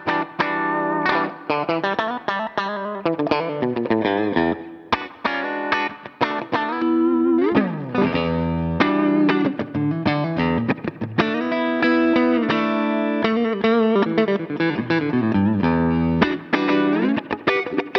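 Electric guitar played through a Line 6 Pod Go's AC30 amp model, a fairly clean tone with a little more gain than a Fender-style clean, picked as a run of single notes and chords with a sliding note about halfway through.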